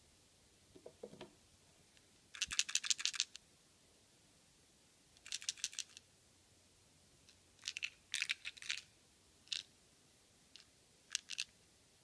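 SJ4000 action camera's small plastic body being handled in the fingers: short bursts of rapid, light clicking and rattling, six times, the longest about a second, with a soft rustle about a second in.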